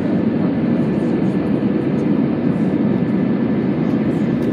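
Steady cabin noise of an Airbus airliner climbing after takeoff: its jet engines and rushing airflow, heard from a window seat over the wing, with a faint steady high whine above the low noise.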